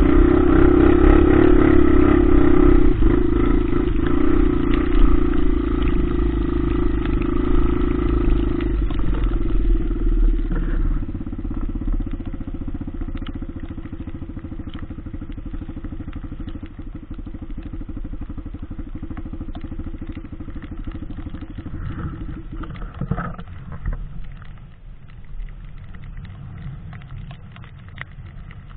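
Dirt bike's single-cylinder engine running while riding, dropping to a lower, quieter run about ten seconds in and quieter still near the end as the bike eases along the muddy ruts.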